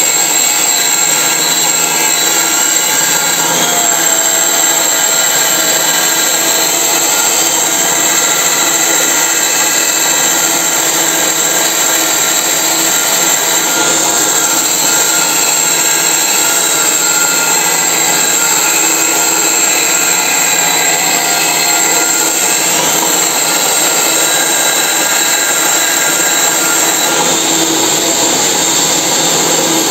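Angle grinder running with an abrasive disc pressed against a spinning steel shock-absorber tube, grinding the paint off in a steady loud whine; the electric motor turning the tube runs underneath. The sound changes near the end as the grinder is lifted off the tube.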